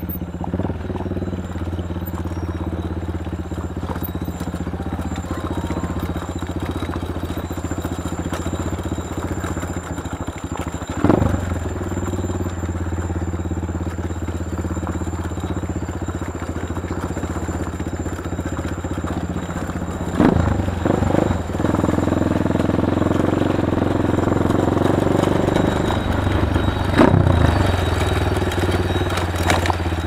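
Small motorcycle engine running steadily at low speed along a rough dirt track. A few sharp knocks and rattles come from bumps along the way, and it runs a little louder in the last third.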